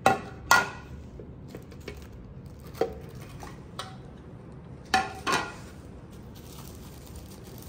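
Clear plastic dome food covers lifted off breakfast plates and set down on a glass tabletop: about six sharp clacks and knocks of plastic against plates and glass, the loudest about half a second in and about five seconds in.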